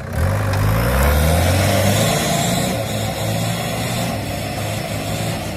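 Modified off-road jeep's engine revved hard under load as it climbs out of a steep sandy gully. The revs rise sharply in the first second and stay high for a couple of seconds, then ease off, with loose sand and dirt spraying from the tyres.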